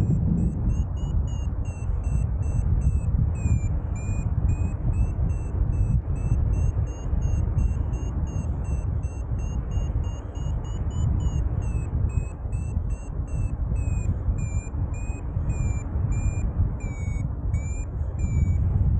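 Paragliding variometer beeping about twice a second, its pitch drifting up and down: the climb tone that signals the glider is rising in lift. Under it, heavy wind rumble on the microphone.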